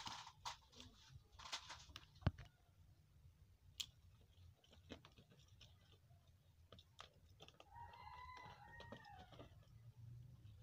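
Near silence with scattered faint clicks, the sharpest about two seconds in. About eight seconds in comes one faint, drawn-out animal call, lasting about a second and a half and dropping at its end.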